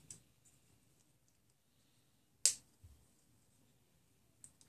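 Sharp plastic click about two and a half seconds in, with fainter clicks near the start and end, as model-kit parts are popped and trimmed off their plastic runners.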